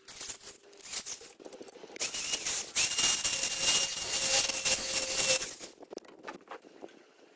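Corded electric drill running for about three and a half seconds, its bit drilling into the flat steel bar of a welded frame, with a steady high whine. A few clicks and knocks come before and after as the drill is handled and set down.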